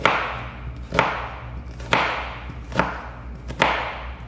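Kitchen knife making vertical cuts into a halved onion on a plastic cutting board, dicing it with cuts that stop short of the root: five strokes about one a second, each a sharp tap of the blade on the board that trails off briefly.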